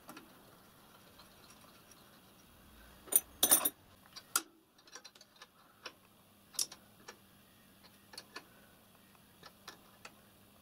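Small brass pipe fittings clicking and clinking against a metal block as they are screwed on by hand, with a quick run of louder clicks about three seconds in and scattered lighter ticks after.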